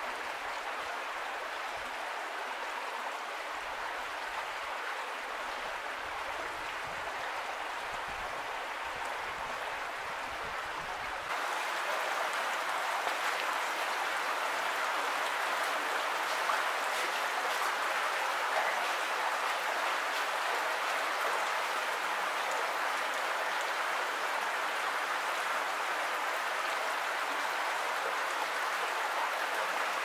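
Steady rushing of a shallow creek running over rocks. About eleven seconds in it turns abruptly louder and brighter.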